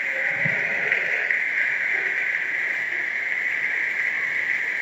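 Steady hiss of hail and rain falling on grass, with a faint low thump about half a second in.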